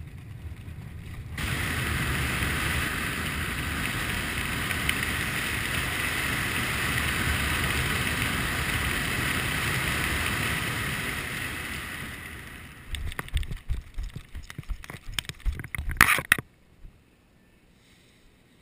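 Wind rushing over the microphone while flying under a parachute canopy, steady for about ten seconds and fading out near the twelve-second mark. Then a run of loud irregular thumps and rustles as the skydiver touches down on grass, stopping suddenly about sixteen seconds in.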